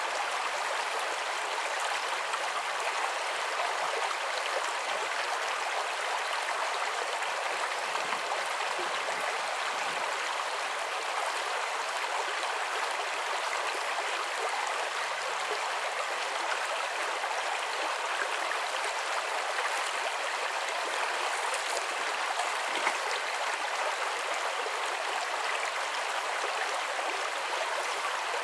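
Shallow brook running over stones: a steady rush of moving water.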